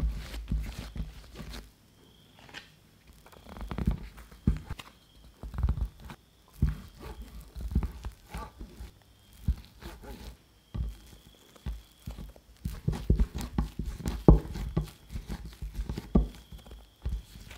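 Bread dough being worked by hand on a silicone mat: irregular soft thumps and slaps as it is pressed, cut into pieces with a plastic dough scraper and rounded, with a short quiet gap about two seconds in.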